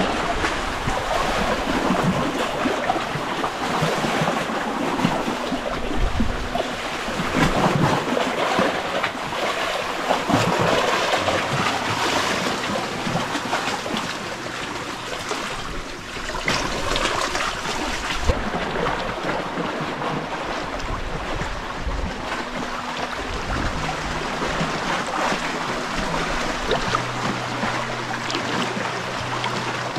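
Sea water washing and lapping in clear shallows: a steady rush of small waves, rising and easing every few seconds.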